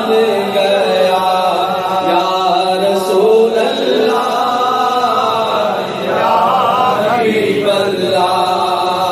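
A man's voice singing a naat, an Urdu devotional poem in praise of the Prophet, in long drawn-out melodic phrases with bending held notes, through a microphone and PA. There is a short break in the phrasing about six seconds in.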